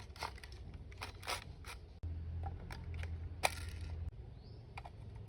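Scattered light clicks and scrapes of a plastic toy gun and its packaging being handled, with one sharper tick about three and a half seconds in. A faint low hum sits underneath for about two seconds in the middle.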